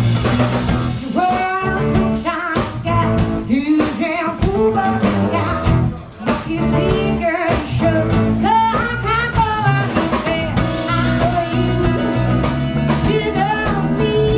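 Live acoustic band playing: strummed acoustic guitar, bass and drums, with a voice singing over them. The music dips briefly about six seconds in, then carries on.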